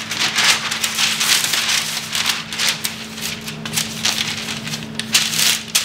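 A sheet of parchment paper crinkling and rustling as it is handled, laid over dough and smoothed flat by hand, with many sharp little crackles throughout.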